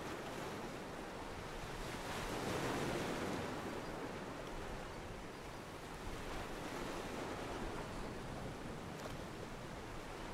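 Ocean water washing and lapping against a pier in a steady wash, swelling briefly about two seconds in.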